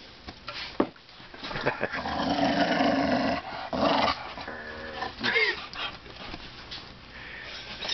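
Shaggy white dog growling in play, in several stretches, the longest about a second and a half, with a short rising whine a little past the middle.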